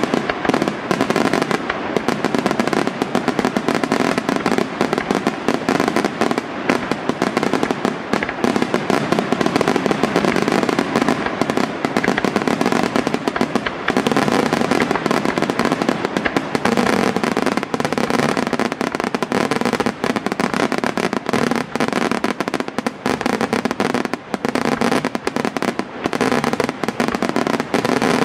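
Aerial firework shells bursting in dense, unbroken succession: a continuous barrage of bangs and crackle.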